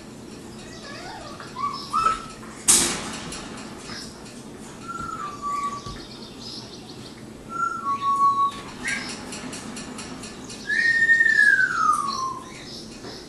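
High thin whines and chirps from an animal at play: several short whines, then one long whine falling in pitch near the end. A single sharp clack comes about three seconds in.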